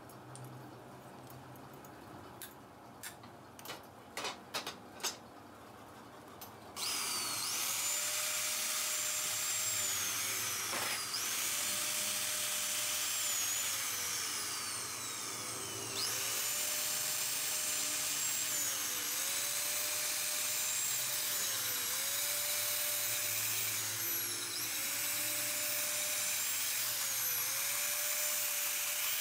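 A few light taps, then from about seven seconds in a handheld power drill running with its bit down in a valve port of an aluminium cylinder head. Its whine sags and climbs back roughly every three seconds as the load on the bit comes and goes.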